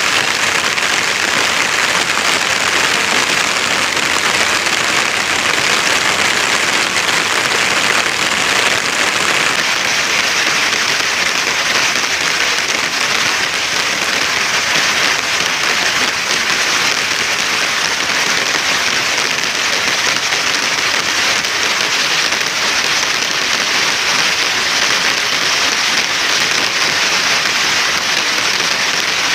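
Steady rain falling outdoors: an even, unbroken hiss of raindrops with no letup.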